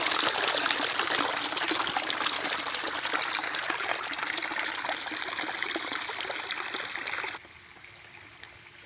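Running water trickling and splashing steadily, slowly fading and then cutting off suddenly near the end, leaving a faint hiss.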